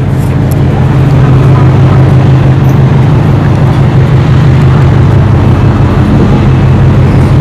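Engine running steadily: a loud, unbroken low hum.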